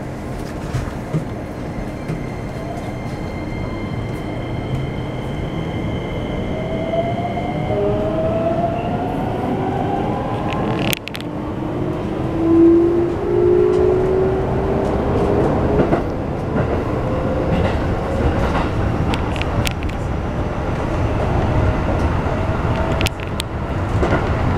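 Keikyu New 1000 series train's Toyo IGBT-VVVF inverter and traction motors, heard from inside the car as the train pulls away: steady high whines in the first few seconds give way to rising whines as it gathers speed. Underneath is a constant rumble of the wheels on the rails, with a few sharp clicks.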